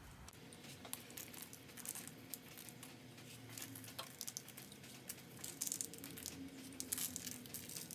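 Coarse pretzel salt sprinkled by hand onto raw pretzel dough and parchment paper: faint, scattered light ticks of grains landing, coming in quick clusters with each pinch.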